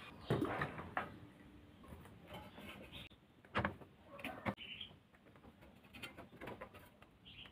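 Scattered light clicks, knocks and rustles as hands handle a plastic bottle and fit small parts onto a bicycle wheel rim.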